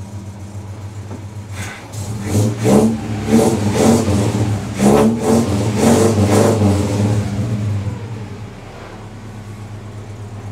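Mazda mini truck engine idling, then revved in a run of quick blips from about two seconds in until about eight seconds in, before settling back to a steady idle.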